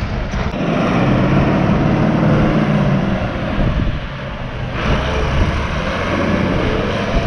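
Ursus 1634 tractor's diesel engine running as the tractor drives past and pulls away.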